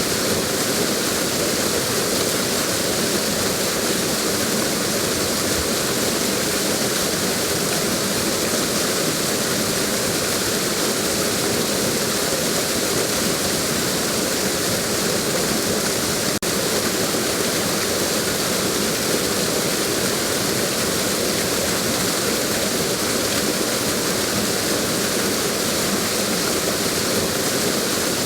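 Waterfall: a steady, dense rush of water falling and splashing.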